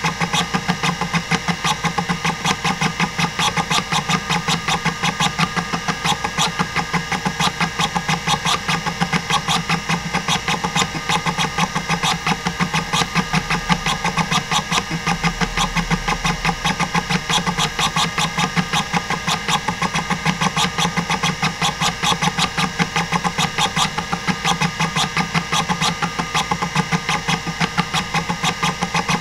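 Hitachi DK505-2 26MB stepper-motor hard drive seeking at random during a SpinRite access benchmark. The head stepper chatters in an even, rapid run of seeks, about six a second, over the steady hum of the spinning drive.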